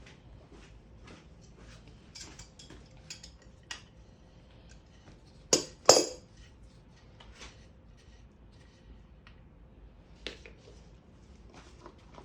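Scattered small clicks and metallic clinks of tools and parts being handled, with two loud sharp knocks in quick succession about halfway through.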